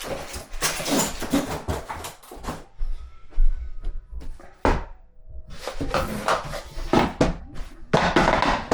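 Flat-pack drawer panels and parts being handled and set down, with a run of knocks, clunks and rustling and one sharp knock about a third of the way in.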